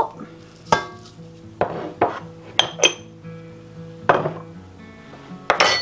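Kitchenware clinking and knocking about seven times as containers and utensils are handled and set down on a countertop, over soft background music.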